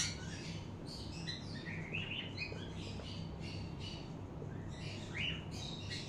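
Small pet parrots chirping: short high chirps scattered through, over a steady low hum.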